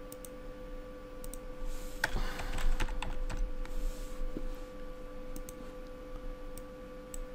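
Typing on a computer keyboard: scattered single clicks, with a quick run of keystrokes from about two seconds in to about four and a half seconds in, over a faint steady hum.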